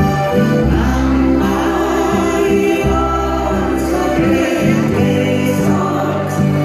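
Alpine folk band playing live: diatonic button accordion, acoustic guitar and upright bass, with men singing together in harmony over them.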